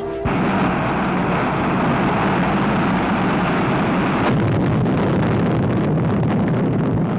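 Roar of a Jupiter missile's liquid-fuel rocket engine at liftoff: a loud, steady rushing noise that starts suddenly. About four seconds in it turns rougher and more crackling.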